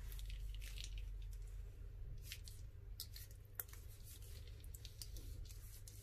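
A plastic piping bag being squeezed and handled, its plastic crinkling in scattered short rustles along with faint squishing.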